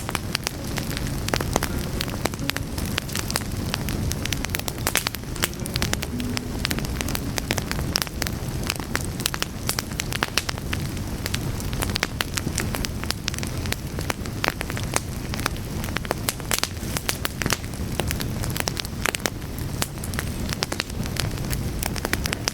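Wood fire burning, with dense, irregular crackling and popping of the logs over a steady low rumble of the flames.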